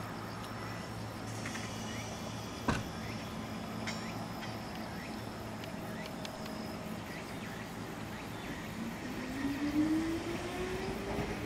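Ichibata Electric Railway 3000-series electric train standing with a steady low hum, then starting off: from about nine seconds in, a motor whine rises steadily in pitch as it accelerates. A single sharp knock about three seconds in.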